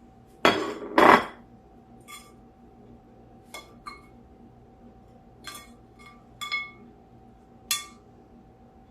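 A serving utensil scraping and clinking against a cooking pan and plate as stir-fried beef is dished up. Two loud scrapes come about half a second and a second in, then a scattering of short, lightly ringing clinks.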